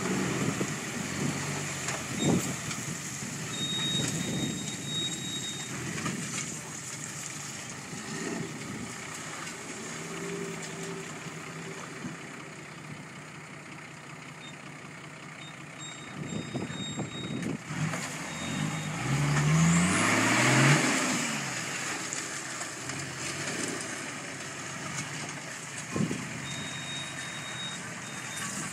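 Off-road 4x4's engine running under load as the truck wades through deep mud and water, with a loud rev that rises in pitch about two-thirds of the way through.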